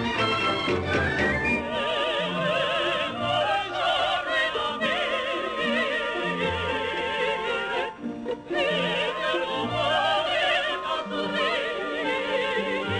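Operatic singing with orchestral accompaniment: singing voices with wide vibrato over sustained orchestral notes, with a brief break about eight seconds in.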